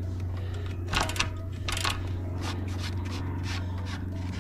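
A gloved hand scraping and flicking gravel chips off a road bike's rear tyre as the wheel is turned, with irregular clicks and scrapes, the loudest about a second in and again near two seconds. The stones are from fresh loose-chip pothole patching that has stuck to the tyre.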